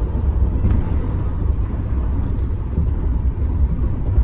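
Road noise heard inside a car's cabin at highway speed: a steady low rumble from tyres on the interstate pavement.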